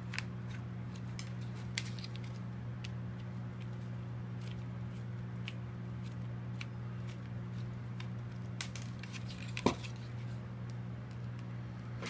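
Small screwdriver working the screws out of a metal laptop hard drive caddy: scattered faint metallic clicks and ticks, with a sharper click and a short squeak about ten seconds in. A steady low hum sits underneath.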